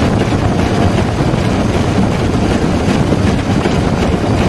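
Steam locomotive (class 7a "Ulka", built 1892) running along the line, a steady, loud running noise of the engine and wheels on the rails with light irregular clatter.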